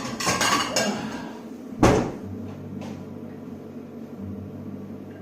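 Clatter of a kitchen cupboard and plates being handled, with one sharp knock about two seconds in, like a cupboard door shutting or a plate set down. A steady low hum carries on after it.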